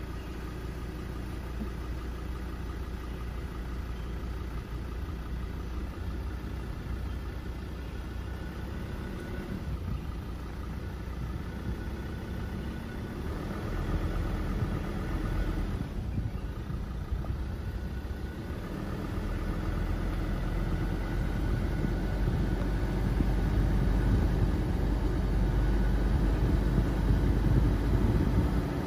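A car driving along a paved road, its engine and tyres making a steady low rumble that grows gradually louder over the second half.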